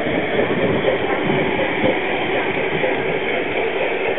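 Garden-scale model train running along outdoor track, a steady rolling rumble of its wheels on the rails.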